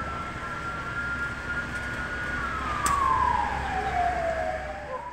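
Fire engine siren wailing in one slow cycle: held high for about two seconds, then falling, and starting to rise again near the end, over a steady background hiss. A single sharp click about three seconds in.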